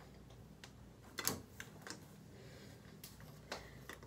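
A few light, scattered clicks and taps from a curling iron being handled, the loudest about a second in, over a faint steady low hum.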